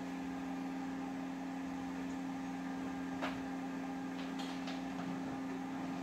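Steady electrical hum from a switched-on amplifier rig, with a few light clicks and knocks about three and four seconds in as a gooseneck microphone is handled and repositioned.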